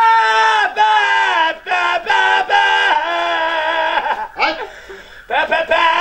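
A man singing loudly in long, high, held notes that waver slightly, with short breaks between phrases and a longer pause about four and a half seconds in.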